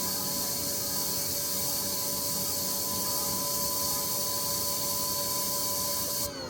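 EGO HPW3200-series cordless pressure washer spraying on its low setting through the 40-degree nozzle, at about 750 PSI: a steady hiss of water with a steady motor-and-pump whine. Near the end the spray cuts off and the motor begins to wind down, its whine falling in pitch.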